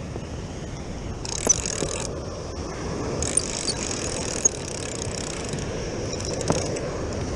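Spinning reel being cranked by hand, its gears whirring in two short spells with a few sharp clicks, over steady surf and wind noise.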